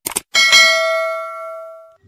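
Click sound effect, then a bright bell chime that rings and slowly fades before being cut off at the end: the stock notification-bell sound of an animated subscribe-button click.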